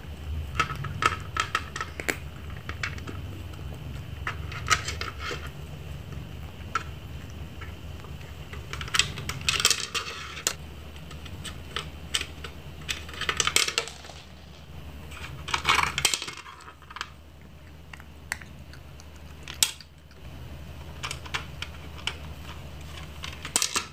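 Dry kibble clicking and rattling against the plastic tiers of a cat food-puzzle tower as cats paw and nose pieces out, in scattered clusters of small sharp clinks over a faint low hum.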